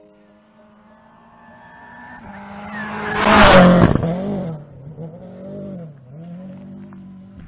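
Turbocharged Toyota Yaris rally car approaching and passing close at speed, loudest about halfway through with a rush of noise, then its engine revving up and down as it pulls away.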